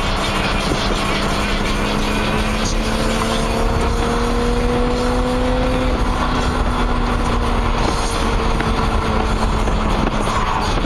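BMW E30 driving at a steady pace: a steady engine drone under road and wind noise. The engine note rises slightly about halfway through, then eases off again.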